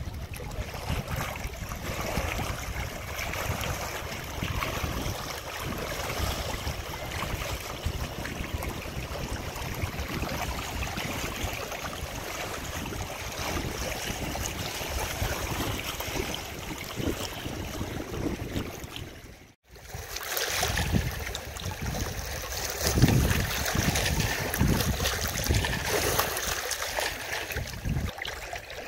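Outdoor wind and moving water, with wind buffeting the microphone. It cuts off sharply about two-thirds of the way through and comes back louder, with stronger gusts rumbling on the microphone.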